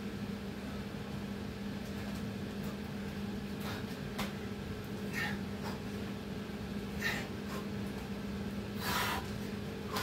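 A man exercising breathes hard, with several short, sharp exhales, the strongest near the end, over a steady low electrical hum.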